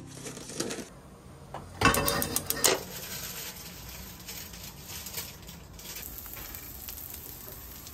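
Pieces of guanciale tipped into a hot non-stick frying pan with no oil, a quick clatter as they land about two seconds in, then steady sizzling as the meat begins to fry in its own fat.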